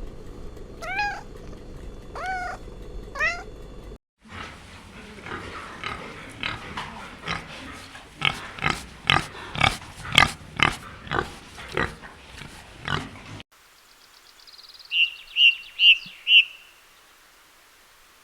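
A cat meowing three times, then, after a cut, a different animal giving a rhythmic series of about a dozen short loud calls, then four short high-pitched chirps near the end.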